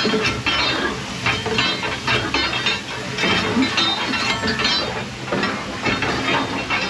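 Irregular metallic clinking, knocking and scraping as a fire iron breaks up the remains of a steam locomotive's coal fire in the firebox and knocks clinker and coal down into the ash pan, over a steady hiss of steam.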